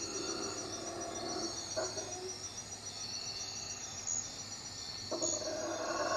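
Night insects, crickets among them, trilling steadily in a high pulsing chorus. Underneath, howler monkeys keep up a faint, low howling, which begins to swell into a louder roar near the end.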